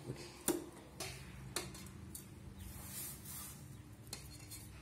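A few sharp light clicks of food and fingers against a stainless-steel mixer jar as a coarse ground mixture is dropped in by hand, then a faint dry rustle as powdered jaggery is tipped into the jar.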